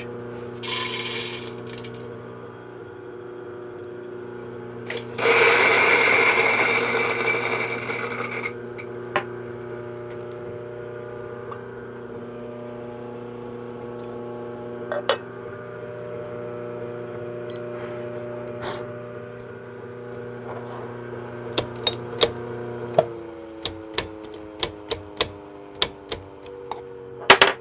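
A steady hum that drops slightly in pitch a little before the end, with a loud burst of rushing noise lasting about three seconds, about five seconds in. Near the end comes a quick run of sharp clicks: whole coffee beans tipped from a glass tube and dropping for weighing.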